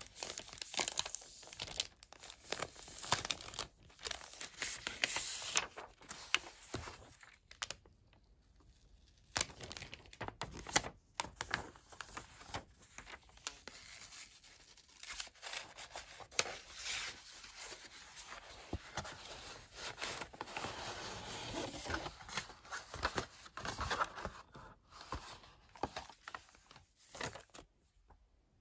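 Clear plastic wrapping and paper inserts of a notebook set being handled up close: crinkling and rustling in irregular bursts with small sharp clicks and taps. It goes quieter for a couple of seconds about eight seconds in.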